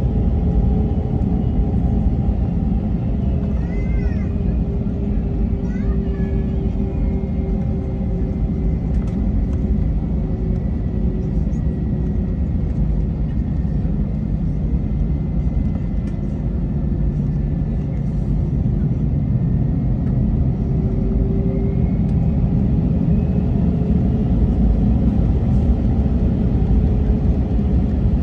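Cabin noise inside an Airbus A321-231 taxiing: a steady low rumble with the IAE V2500 engines' hum at taxi power and faint whining tones that drift slowly in pitch. Two brief faint chirps come about four and six seconds in.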